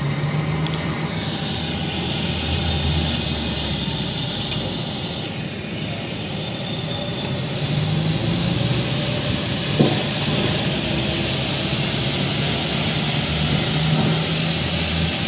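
Drawn-out droning and hissing noise of the kind passed round as a mysterious 'strange sound in the sky', with wavering low hums underneath and a high whine that slowly falls over the first few seconds.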